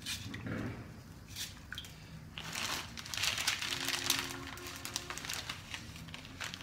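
Crinkling of a plastic spaghetti packet being handled, in several short bursts, as dry spaghetti is taken out and broken for the pot.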